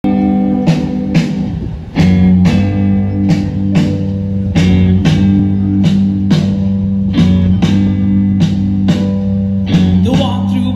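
Amplified live rock and roll band playing an instrumental passage: electric guitars, bass, keyboard and drum kit, with sharp drum hits about twice a second. The band comes in louder about two seconds in.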